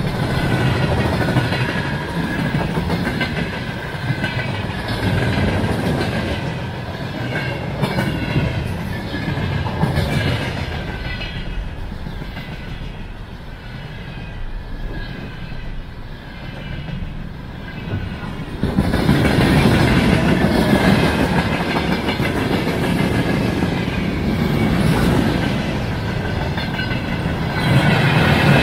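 Loaded freight wagons of a long train rolling past close by: steady wheel-on-rail rumble with the rhythmic clickety-clack of wheelsets crossing rail joints. The rumble grows louder about two-thirds of the way through.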